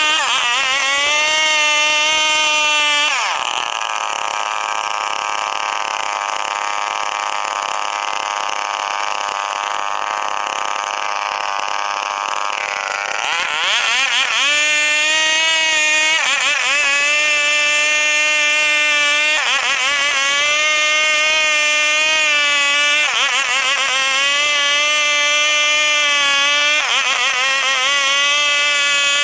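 Stihl 070 two-stroke chainsaw running at high revs. About three seconds in its pitch drops and the note goes rough for about ten seconds, then it climbs back to a high whine that dips briefly and recovers every few seconds.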